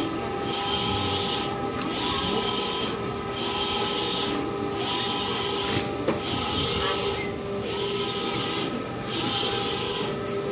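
Large-format eco-solvent printer with Epson i3200 print heads printing tarpaulin. The head carriage sweeps back and forth, making a whirring pass about every one and a half seconds with a brief pause between passes. A steady motor whine runs underneath.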